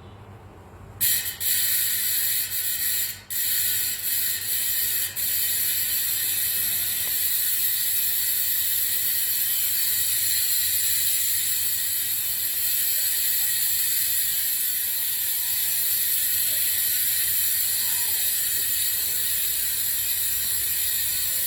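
Arc bicycle rear hub freewheeling: the pawls ratchet in a fast, continuous high buzz as the wheel spins. It starts about a second in, breaks off briefly twice in the next few seconds, then runs evenly.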